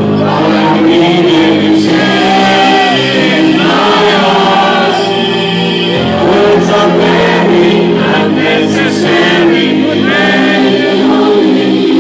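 Loud dance music from a DJ set, with sung vocals over held bass notes and a steady percussive beat.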